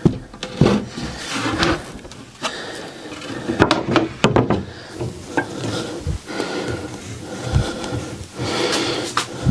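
A thin wooden stick scraped and rubbed back and forth across a multiplex plywood board, spreading wood glue, with a few knocks of wood being handled.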